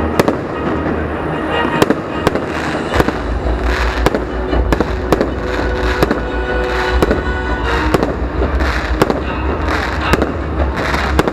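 Fireworks display: a rapid run of sharp bangs and cracks from aerial shells, several a second, over a continuous low rumble.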